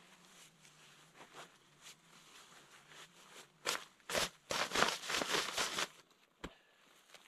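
Camp gear being packed: faint rustling at first, then from about three and a half seconds in about two seconds of loud, close crunching and rustling as a backpack is handled on frosty scrub beside the microphone, with one short click after.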